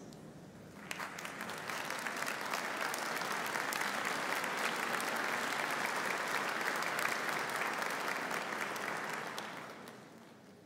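Audience applauding: the clapping starts about a second in, holds steady, and fades out near the end.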